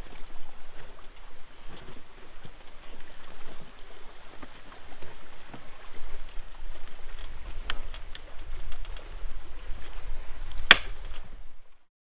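Hard-shell rooftop tent being closed by hand: the canvas rustling as it is tucked in and the ABS shell handled, with small clicks and knocks, and one sharp click near the end. Wind rumbles on the microphone throughout, stronger in the second half.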